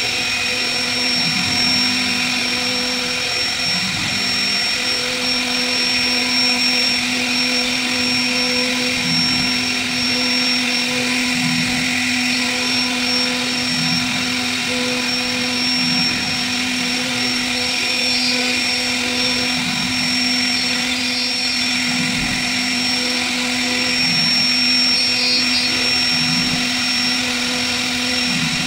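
CNC router spindle running at a steady pitch with a constant whine, its small straight bit routing grooves into a solid wood door panel.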